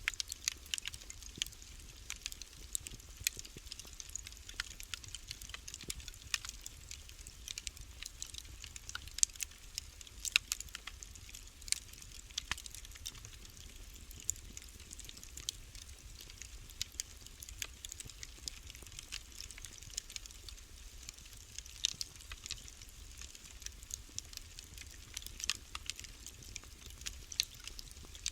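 Fire crackling in a fireplace: irregular sharp pops and snaps, several a second, over a low steady rumble.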